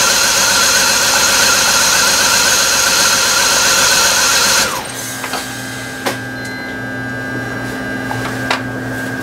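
BMW 325xi's 2.5-litre straight-six idling with a wavering high whine over it, then shut off about four and a half seconds in; afterwards a low steady hum and a few light clicks. The engine has low compression in cylinder one.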